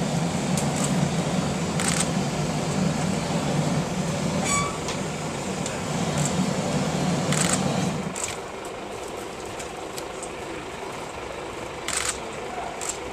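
An engine or motor running steadily, which drops to a lower level about eight seconds in, with a few short sharp clicks over it.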